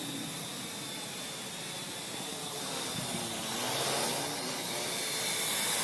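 Parrot AR.Drone quadcopter flying close by: its rotors and motors give a steady hissing whir that grows louder as it nears, with a thin high motor whine rising in the second half. Wind buffets the microphone.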